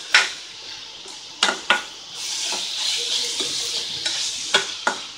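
Grated carrot being stir-fried in oil in a stainless steel kadai: a spatula scrapes and clinks against the pan five times, the loudest right at the start, over a steady sizzle that grows louder about two seconds in.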